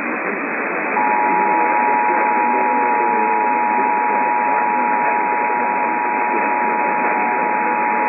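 Emergency Alert System attention signal: the standard two-tone alert, 853 Hz and 960 Hz sounded together, starts about a second in and holds steady. It is heard over AM radio, narrow-band and muffled, with a steady hiss of static underneath.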